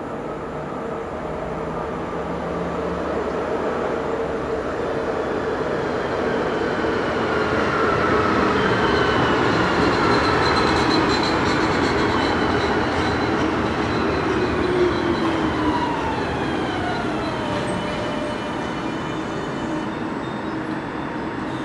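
NorrTåg X62 electric multiple unit (Stadler FLIRT) pulling into a station and slowing to a stop. Its running noise grows to a peak about halfway through as it passes. Several whining tones fall steadily in pitch as it brakes.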